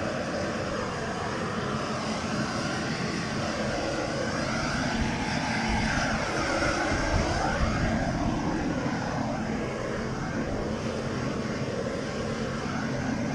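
Propane shrink-wrap heat gun running steadily, blowing its flame onto plastic shrink-wrap to shrink it tight over a boat.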